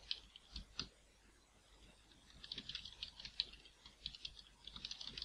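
Computer keyboard typing: a few separate keystrokes, a pause of about a second, then quick runs of keystrokes.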